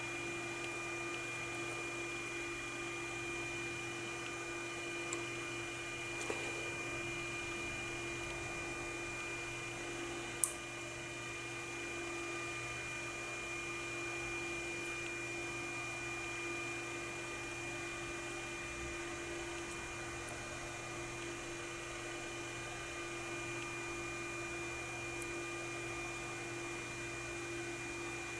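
Steady electrical or machine hum with constant high and low tones, with a few faint ticks and one sharp click about ten seconds in.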